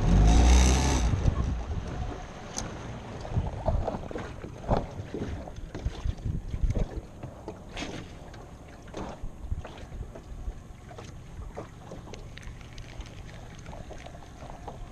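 Wind buffeting the microphone on a small aluminum rowboat, with a loud gust in the first second or so. Water slaps against the hull and there are scattered light knocks and clicks.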